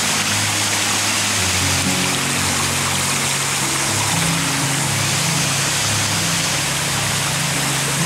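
Background music with slow, sustained low notes, over the steady rush of a rocky stream.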